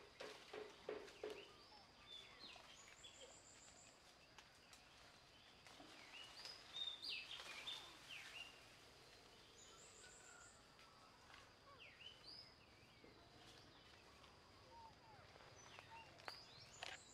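Faint outdoor ambience: birds chirping in short high calls, with a brief rapid trill heard three times and a steady thin high drone underneath. A run of soft clicks at the start.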